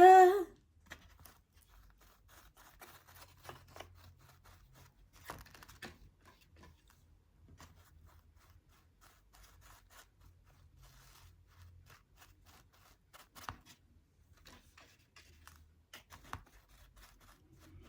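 Faint, scattered rustles and light clicks of paper and cardboard being handled in a small room, with a few louder taps now and then.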